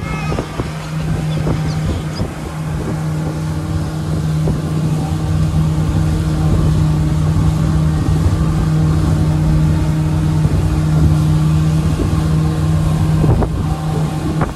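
Motorboat engine running at a steady speed, with wind noise on the microphone.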